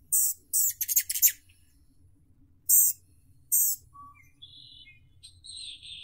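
Rufous hummingbird calling with short, very high, dry chip notes. Several come in quick succession in the first second, the last breaking into a rapid stutter, and two more come around three seconds in. Fainter, thinner notes follow near the end.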